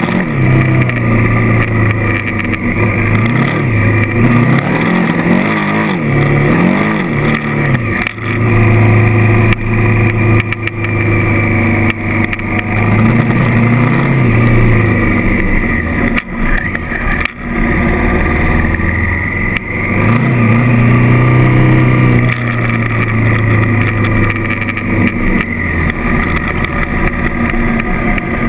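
Honda CRF1000L Africa Twin's 998 cc parallel-twin engine under way, its note dropping and climbing again several times as the throttle is eased and reopened. A few sharp knocks come through about eight seconds in and again around sixteen and seventeen seconds.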